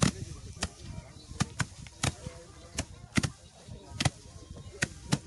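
Wooden sticks striking harvested crop in hand threshing, making sharp knocks in an uneven rhythm of about two a second, some falling in quick pairs.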